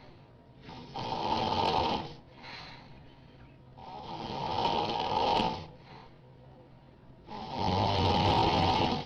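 Loud snoring: three long snores about three seconds apart, each followed by a shorter, softer breath.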